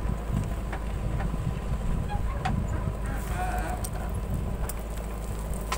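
JCB 3DX backhoe loader's diesel engine running steadily while its rear bucket digs and curls a load of soil, with scattered clicks of soil and stones. A brief higher-pitched honk-like sound comes about three seconds in.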